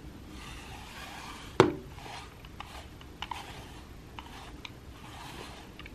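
Soft, repeated scratchy strokes of a pet brush dragged through a tabby cat's fur, with small clicks between strokes and one sharp tap about one and a half seconds in.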